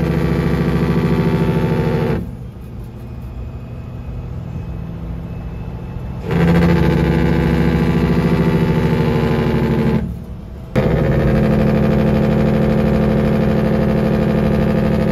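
Semi truck's jake brake (diesel engine compression brake), heard from inside the cab, rattling steadily as it holds the truck back on a downhill grade. It switches off about two seconds in, leaving a quieter engine hum, comes back on about six seconds in, drops out briefly around ten seconds, then comes back on.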